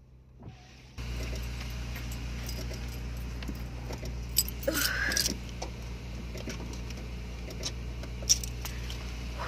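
A steady low hum inside a car, with fabric rustling and light clicks and jingles as a knitted wrap is pulled around and handled.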